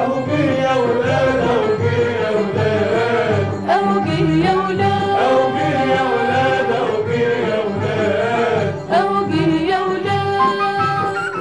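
An Egyptian female vocal trio singing a Ramadan song in unison over a lively instrumental backing.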